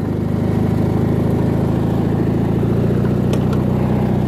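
Briggs & Stratton 16.5 hp opposed-twin engine of a White LT 1650 riding mower running steadily, on both cylinders now that a replacement ignition coil has cured a misfire on one cylinder.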